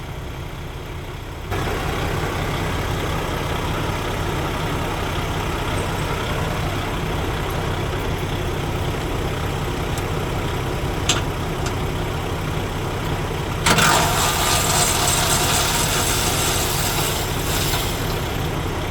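Heavy diesel truck engine idling steadily, with a sharp click about eleven seconds in and a louder rushing hiss lasting about four seconds near the end.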